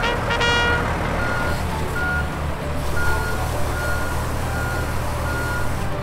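John Deere 60G compact excavator running, with its travel alarm giving a single high beep about once a second over the steady engine hum. A few notes of music sound at the very start.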